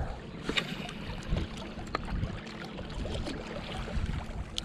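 Wind buffeting the microphone over small waves lapping against shoreline rocks, with a few light clicks.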